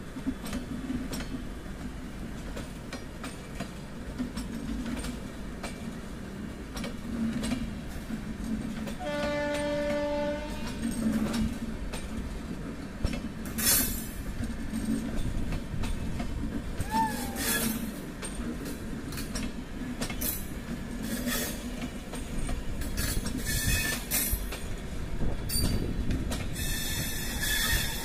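Rajdhani Express LHB coaches rolling past slowly over a track crossover, with a steady rumble and wheels clicking over rail joints. A single train horn blast sounds about a third of the way in and lasts about a second and a half. Short high wheel squeals come several times in the second half.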